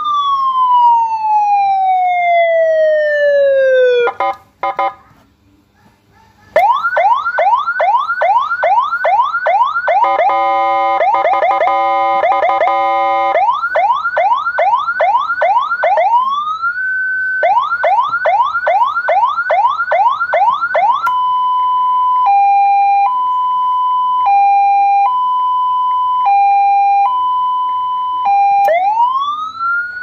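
Senken CJB100BDi 100-watt electronic siren cycling through its tones. A wail falls away and stops about four seconds in, and after a short gap comes a fast yelp of about three rising sweeps a second, a very rapid warble, then more yelp. A two-tone hi-lo changes pitch about once a second, and near the end a wail rises again.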